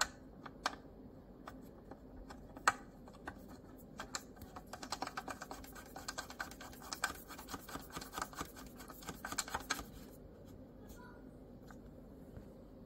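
Metal thumb screw being turned in by hand through a white metal bracket: a few scattered clicks, then from about four seconds in a quick run of small scratchy clicks as fingertips work the ridged head around, stopping about ten seconds in.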